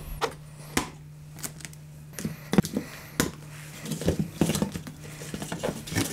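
Spring clamps and wooden boards being taken off a riding-mower seat: irregular clicks, snaps and light wooden knocks, over a steady low hum.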